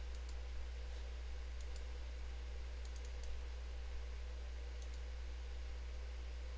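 Computer mouse clicking a few times, mostly in quick pairs, over a steady low electrical hum.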